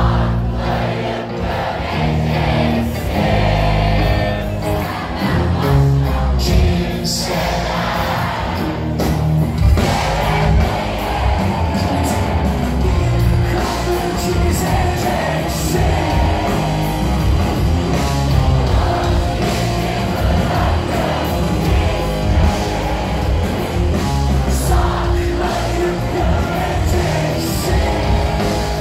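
Live rock band playing loudly with a lead vocal, heard from within the concert crowd.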